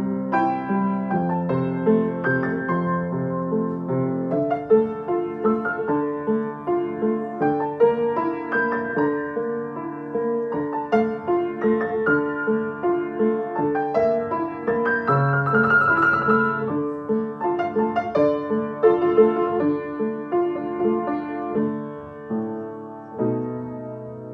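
Upright piano played solo: a lyrical piece with a steadily repeating accompaniment figure under a melody. About two-thirds of the way through comes a quick high trill, and near the end the playing grows quieter.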